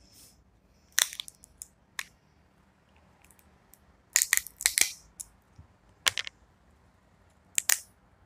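Seafood shells being cracked and peeled apart by hand, giving short crackling bursts: one about a second in, a busier cluster around the middle, and more near six and nearly eight seconds.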